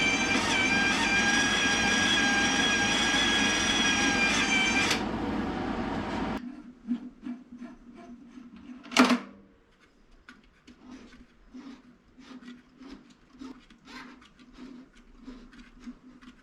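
MIG welder's wire-feed drive motor running at top wire speed with a steady whine, cutting off about five seconds in. Later a single sharp clack, then faint light clicking.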